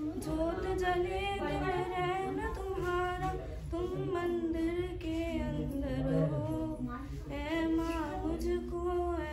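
A woman singing a devotional song to the goddess (a Devi song) unaccompanied, in long held notes that waver in pitch.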